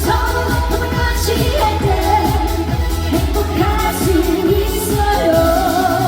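Live trot song: a singer's held melody over a pop backing track with a steady bass beat.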